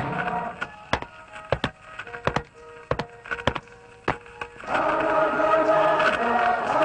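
Animated-film soundtrack: music falls away into a run of scattered sharp clicks and knocks under a thin held tone. About two-thirds of the way through, full music comes back in.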